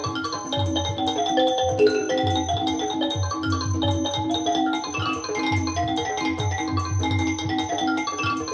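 Music played through Wilson Audio WATT/Puppy 7 loudspeakers: a quick run of bright pitched notes, like mallet percussion, over a repeating bass pattern.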